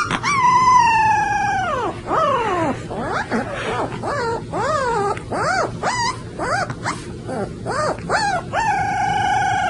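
Puppy howling: a long wavering howl that slowly falls in pitch, then a run of short rising-and-falling yips and whines, then a second long held howl near the end.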